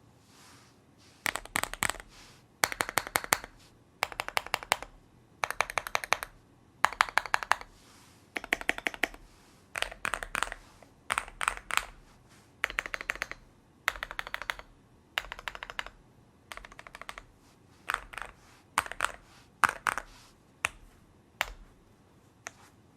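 Keychron Q1 mechanical keyboard with Novelkeys Cream linear switches, a polycarbonate plate, tape mod and extra foam, typed on in quick bursts of keystrokes with short pauses between words, ending in a few single key presses.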